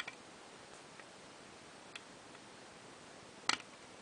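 Lock pick working the pin tumblers of a mortise cylinder lock under tension: a few sparse, faint clicks, then a louder click about three and a half seconds in.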